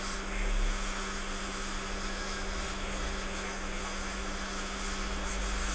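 Hot air rework station blowing, a steady hiss of air over a constant low hum, heating an iPhone 6s NAND memory chip to lift it off the logic board, set to 350 °C with airflow 60.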